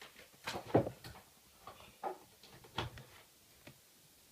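A run of short knocks and clicks from hands handling and connecting the GSM alarm unit and its power-supply wiring, the loudest just under a second in, dying away after about three and a half seconds.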